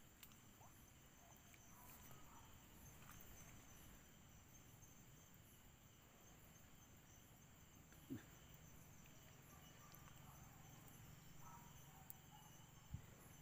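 Near silence with a faint, steady, high-pitched chirring of night insects such as crickets, and a single soft knock about eight seconds in.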